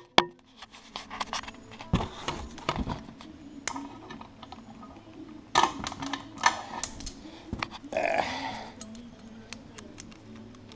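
Scattered metal clicks and clinks of Cleco temporary fasteners being handled and set with Cleco pliers in the holes of an aluminium air-conditioner mounting bracket, with a brief rustle about eight seconds in.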